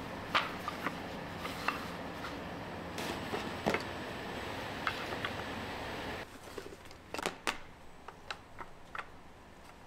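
Curved cut-out wooden parts clicking and knocking against each other as they are picked up and handled in pairs: scattered sharp knocks over a steady low hum, which drops a little past the middle.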